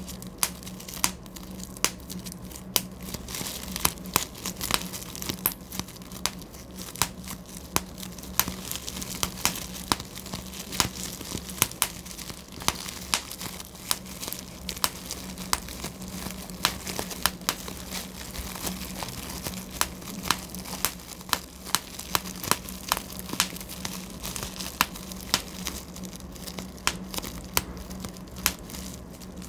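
Bubble wrap popped by hand: sharp, irregular pops, about one or two a second, over the crinkling of the plastic sheet.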